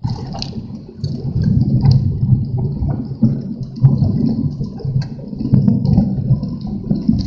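Strong gusting wind buffeting the microphone, an uneven, loud rumble with scattered crackles, starting and stopping abruptly.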